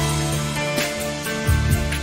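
Background music with a steady beat: held notes over regular drum hits.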